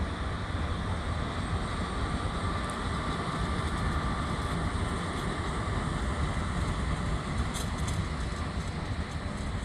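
FS E444 electric locomotive running light past at low speed: a steady rolling rumble with a faint high whine in the middle, and a few brief clicks near the end.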